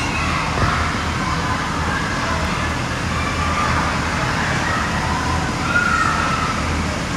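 Noise of a busy indoor inflatable play hall: a steady low hum of the inflatables' blowers under children's high, wavering shrieks and calls that come and go.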